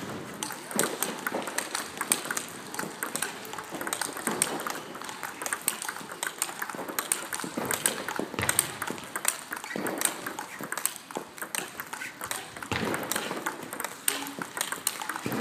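Table-tennis multiball drill: a fast, uneven stream of sharp clicks, several a second, as the balls strike the bats and bounce on the table.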